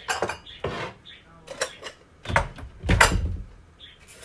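Kitchen clatter: dishes and utensils knocked and set down on a countertop, a string of sharp knocks and clinks with the loudest two, heavier ones, about two and three seconds in.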